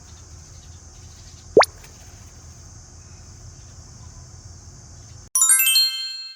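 Edited-in sound effects over a steady background hiss and low rumble: a quick rising swoop about a second and a half in, then near the end a bright cascade of descending chime tones that ring out.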